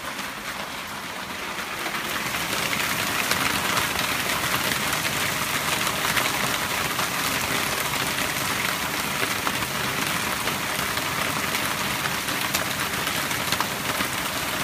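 Heavy hail pelting down: a dense, steady clatter of countless small hits, growing louder about two seconds in.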